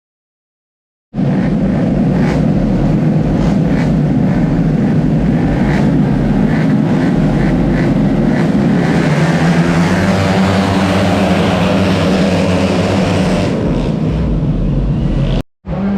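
Tuned 155 cc automatic scooter racing engines running at high revs, a loud continuous engine noise that starts suddenly about a second in. It cuts out abruptly for a split second just before the end, then resumes.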